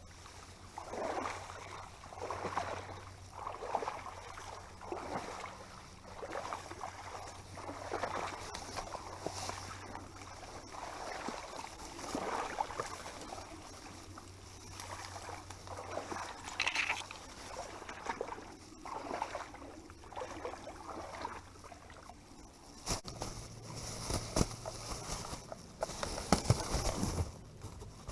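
Water sloshing in a regular rhythm, about one slosh every second or so, as something moves through shallow swamp water. Near the end, sharp clicks and knocks come in over it.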